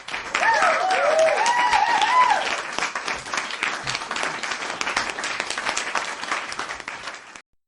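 Crowd applauding, with a voice cheering over the clapping in the first two seconds or so; the applause cuts off suddenly just before the end.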